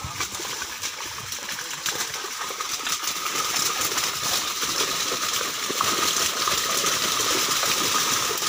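Many fish leaping out of the water and splashing back inside a drawn-in net: a busy patter of splashes and slaps that grows louder as the catch is crowded together.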